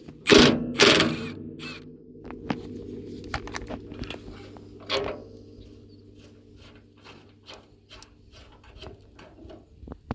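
Tractor engine idling steadily, with two loud clanks in the first second followed by a run of lighter metallic clicks and knocks.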